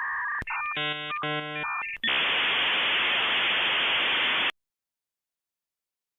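Sound-effect clips played back to back. A short electronic tone is followed by a buzzing tone that breaks on and off for about a second and a half. Then comes a burst of static hiss, about two and a half seconds long, that cuts off suddenly.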